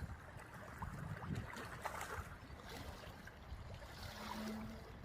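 Water splashing and trickling around a small fishing boat over a low rumble, with scattered small clicks and a brief low hum about four seconds in.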